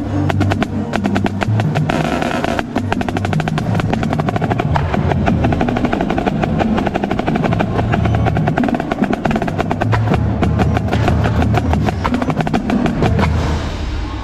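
Marching snare drum played at close range in a fast, dense drumline passage of rapid strokes and rolls, over low sustained notes from the rest of the ensemble. The playing cuts off near the end.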